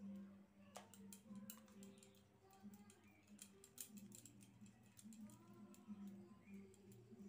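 Faint clicks and taps of a plastic spice shaker being shaken to sprinkle chaat masala over a plate of crisp fried potato straws, thickest in the first few seconds, over a low steady hum.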